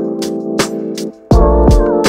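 Background music with a steady beat, sustained synth chords and a deep kick drum. The music cuts out for a moment just after a second in, then the beat comes back in.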